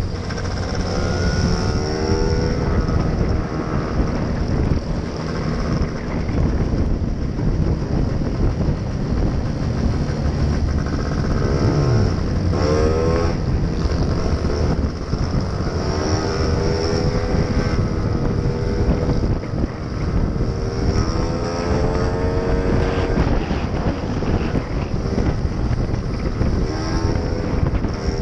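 Wind buffeting the microphone over a motor scooter's engine running on the move, its note rising in pitch several times as the throttle is opened to accelerate.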